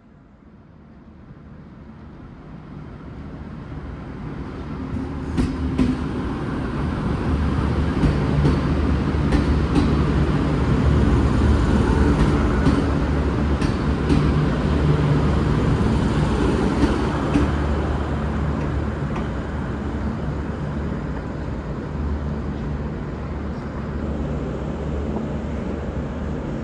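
V/Line VLocity diesel multiple unit running as it departs, its diesel engines and rail noise building over about eight seconds to a steady, loud low drone. A few sharp clicks sound through the middle.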